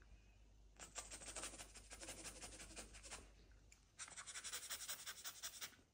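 Faint, fast scratching in two runs of even strokes, the first about three seconds long and the second about two seconds, with a brief break between them.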